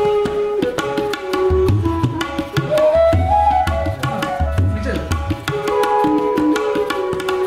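Background music in an Indian classical style: tabla drums with deep low strokes under a melody that slides between notes.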